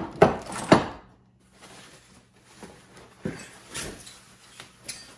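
Steel hitch parts and a chain clanking as they are lifted out of a cardboard box, three sharp clanks within the first second. After that comes a scatter of softer rustles from plastic wrapping and cardboard being handled.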